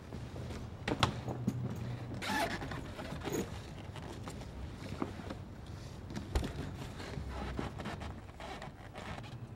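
A fabric bag being handled, with rustling and scattered clicks over a low steady hum that drops out about two seconds in.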